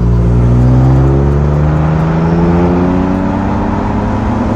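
Exhaust note of a 2018 Ford Raptor's twin-turbo V6 through a Roush exhaust, the engine pitch rising slowly and steadily as the truck accelerates.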